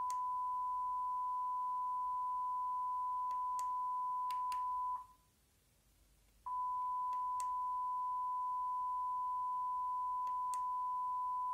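Steady 1 kHz line-up test tone from a satellite TV test channel's colour-bar transmission, played through a TV. It cuts off about five seconds in while the receiver changes channel, and the next test channel's tone comes back about a second and a half later. A few faint clicks sound over it.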